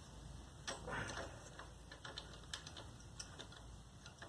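Faint, scattered metallic clicks and taps of a bolt and tool being worked into the scooter exhaust's mounting, with a slightly louder scrape about a second in.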